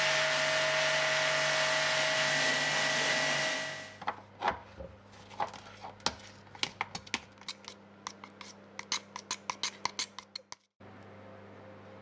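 A jet of water hissing steadily against a screen-printing screen, washing out the stencil. It fades out after about three and a half seconds, leaving a run of irregular sharp ticks and taps that come faster, then a steady low hum near the end.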